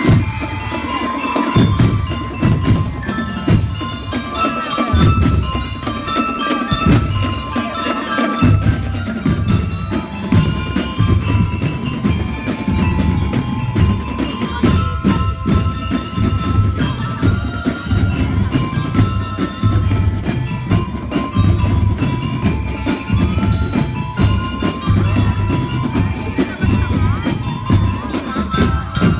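Drum and lyre band playing: bell lyres ring out a melody over a steady beat of marching drums.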